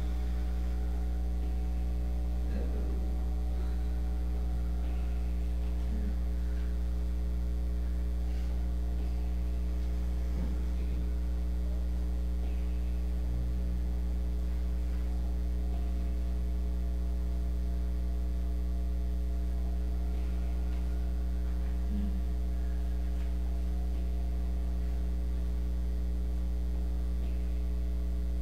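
Steady electrical mains hum with a stack of overtones, unchanging throughout, with a few faint brief sounds in the room now and then.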